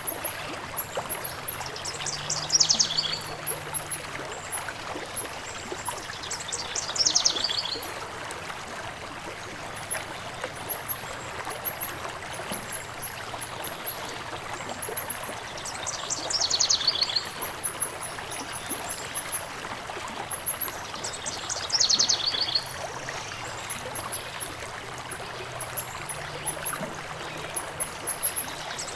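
Stream flowing steadily, with a songbird singing a short, fast trill that falls in pitch, repeated several times a few seconds apart, over faint high chirps.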